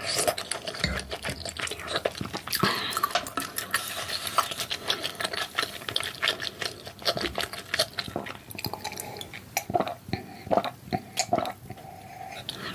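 Close-miked eating sounds: a wooden spoon clicking against a ceramic bowl and soft chewing of rice cake and dumpling soup, then, in the last few seconds, gulps of cola from a glass mug.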